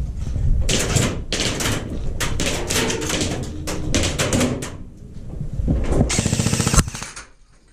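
Airsoft gun firing a short, rapid full-auto burst about six seconds in. Before it come irregular knocks and clatter.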